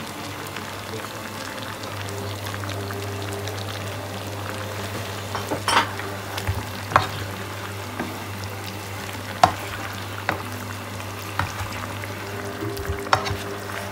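Chicken, mushrooms and carrot slices sizzling as they fry in a pan. From about halfway through, a spatula stirring the food clicks and knocks against the pan several times.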